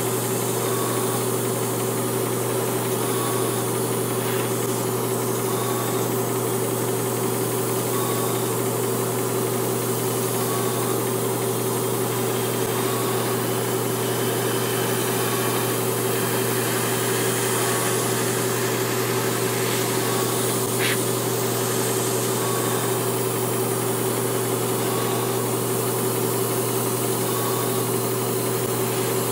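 Airbrush compressor running steadily with a constant hum, set to about 24 psi, under the hiss of an airbrush spraying primer.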